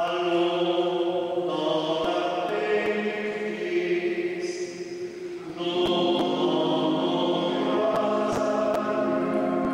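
Group of voices singing long held chords that change a few times, with a few short clicks over the singing.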